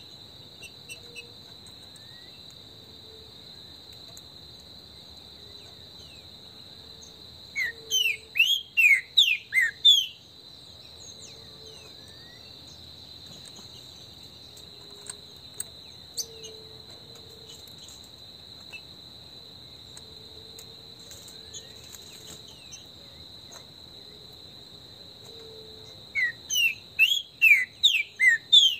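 Green-winged saltator (trinca-ferro) singing two bursts of loud, quick whistled notes, one about eight seconds in and one near the end, each about two seconds long. A steady high insect drone runs underneath.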